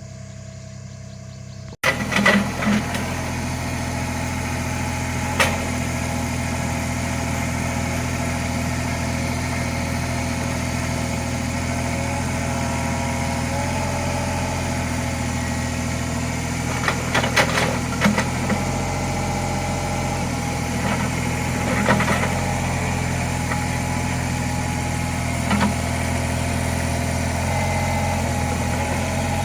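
Small CAT excavator's diesel engine running steadily, louder from about two seconds in, with sharp metallic clanks every few seconds.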